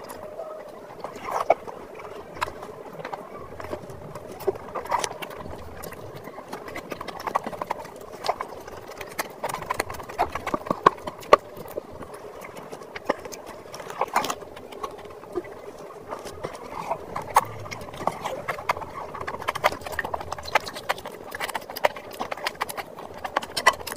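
Chewing and lip-smacking while eating mutton curry with rice by hand: a steady stream of wet mouth clicks and smacks, with squelches from the oily food.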